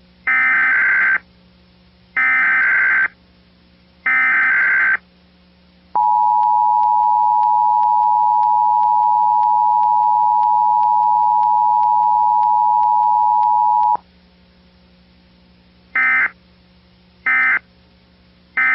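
Emergency Alert System test tones. First come three buzzy SAME data header bursts, each about a second long. Then the two-tone attention signal (853 and 960 Hz) holds steady for about eight seconds. Near the end come three short data bursts.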